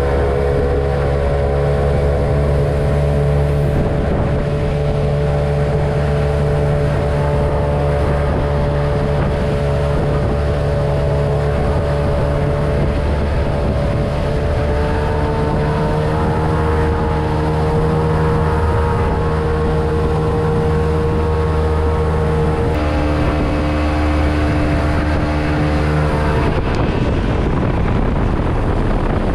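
A pontoon boat's motor running under way at steady cruising speed, with wind on the microphone; its pitch shifts slightly partway through and eases down about two-thirds of the way in. Near the end the engine tone gives way to rushing water from the wake.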